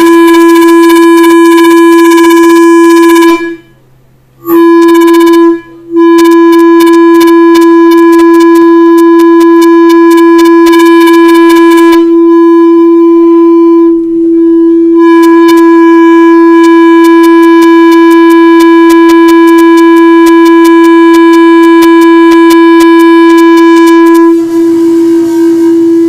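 Loud, sustained synthesizer drone on a single pitch, with a fast crackle of clicks over it. It cuts out briefly twice a few seconds in, and near the end breaks into a rougher, wavering sound.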